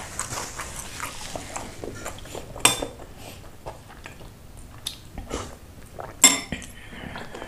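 Metal spoon clinking against a ceramic bowl as noodle broth is scooped up and sipped. There are two sharp clinks, one about two and a half seconds in and a louder one just after six seconds, with quieter eating and sipping noises close to the microphone between them.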